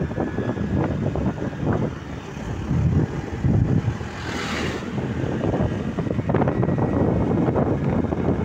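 Wind buffeting the microphone over the running noise of a moving road vehicle, uneven and gusty. About halfway through there is a brief rushing hiss as another vehicle passes close by.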